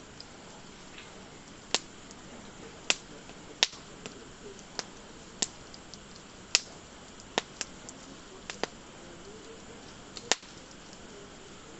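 Wood campfire crackling: sharp pops at irregular intervals, about a dozen of them, over a faint steady hiss of burning.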